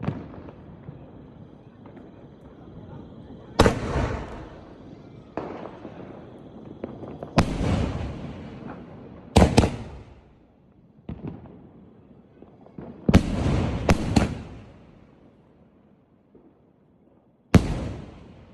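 Fireworks combo going off: about ten sharp bangs at irregular intervals, some in quick pairs, each with a fading crackling tail.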